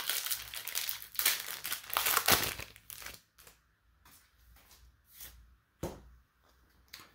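A trading card booster-pack wrapper crinkling and tearing open for about three seconds. After that come a few short, quieter rustles and taps as the stack of cards is pulled out and handled.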